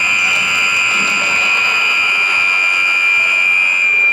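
Gym scoreboard buzzer sounding one long, steady, high-pitched electronic tone that stops near the end.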